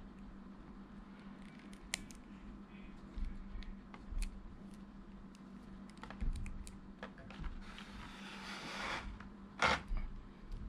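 Small clicks and taps of a plastic S.H.Figuarts action figure being handled and its arm joints posed, with a brief rustle about eight seconds in and a sharper click shortly after.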